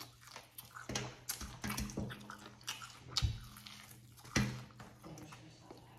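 A person biting and chewing sauced fried chicken wings: irregular wet smacks and clicks of mouth and teeth, with no words.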